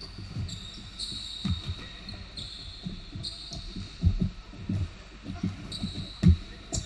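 Indoor basketball play on a hardwood court: the ball bouncing and players' feet thudding in an irregular pattern, with sneakers squeaking on the floor several times. The heaviest thumps come about four seconds in and again near the end, as a player dribbles close by.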